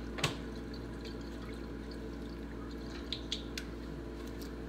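Worcestershire sauce poured from a bottle into a large enamel stockpot: a faint trickle and drip. There is a sharp tap about a quarter second in, and a few light clicks around three seconds as the bottle is handled and capped.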